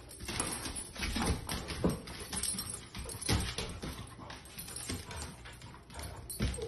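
Two dogs play-fighting: claws scrabbling and tapping irregularly on a hardwood floor, mixed with short dog play noises.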